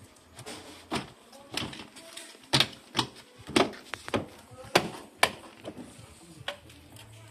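Plastic car door trim panel being pressed and tapped onto the door by hand, its retaining clips snapping home: about ten sharp knocks and clicks, the loudest in the middle.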